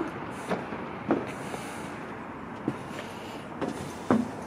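Footsteps on a barge's riveted metal deck: five or six dull knocks at uneven spacing over a steady background hiss.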